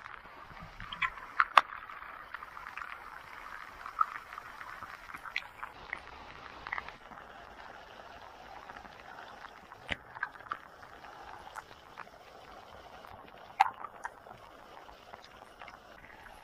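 Water splashing and sloshing, with scattered sharp knocks and clicks over a steady faint hiss; the loudest knock comes about one and a half seconds in.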